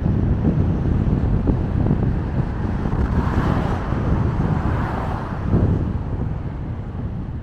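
Road and wind noise from a car driving along, with wind buffeting the microphone in an uneven low rumble. A rushing hiss swells about three seconds in and fades by about five and a half seconds.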